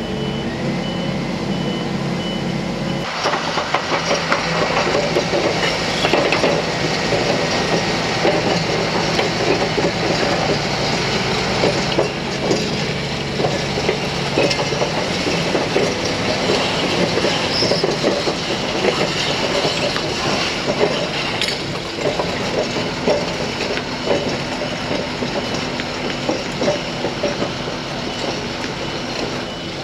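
Diesel engine of a crawler-mounted earth-drill rig running at a steady idle. About three seconds in, the rig starts travelling on its crawler tracks, and the steel track links clatter continuously while it moves.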